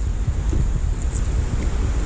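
Wind buffeting the microphone: a steady, rumbling rush.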